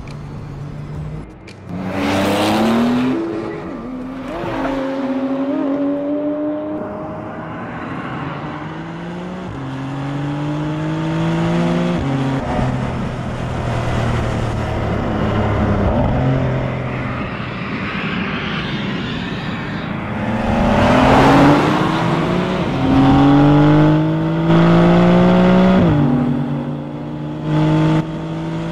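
Porsche 911 Carrera GTS six-cylinder boxer engine accelerating hard through the gears. The pitch climbs steadily, then drops back at each upshift. It is loudest around two seconds in and again about three-quarters of the way through.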